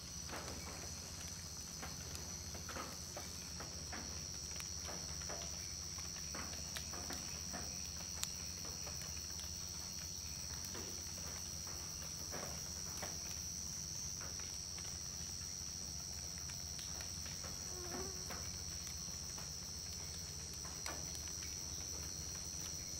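Amazon rainforest insect chorus: a steady, shrill, high-pitched drone, with scattered faint clicks and ticks.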